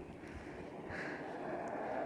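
A vehicle approaching on a snowy road, its steady noise growing gradually louder, with a single soft crunch of a footstep in snow about a second in.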